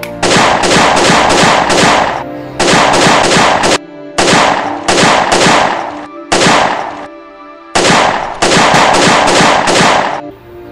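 Rapid handgun fire sound effects, in about six volleys of quick shots (roughly four or five a second) broken by short pauses, over background music.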